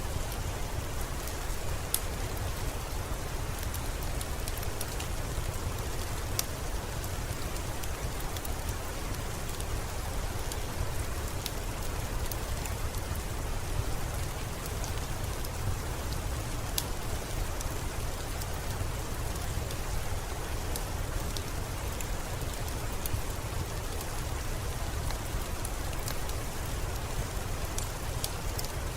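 Steady rain mixed with a crackling fire: an even hiss of rain with scattered sharp pops every few seconds.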